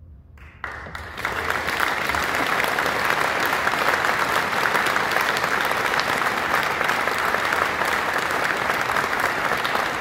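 Audience applauding in a large stone church. After a brief hush the clapping starts under a second in, quickly fills out and carries on as steady, dense applause.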